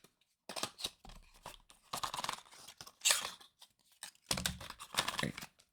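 Packaging rustling and tearing in irregular short bursts, with a sharp crackle about three seconds in, as the small box holding the phone's charger is opened.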